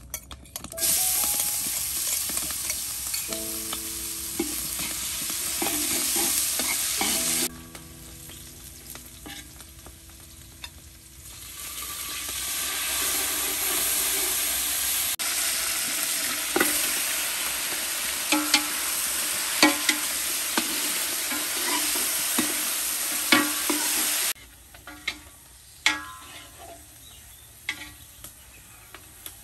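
Pork ribs sizzling in hot oil in a large aluminium pot, stirred with a metal spoon that clinks against the pot now and then. The sizzling starts about a second in, falls away for a few seconds in the middle, comes back, and stops abruptly about five seconds before the end.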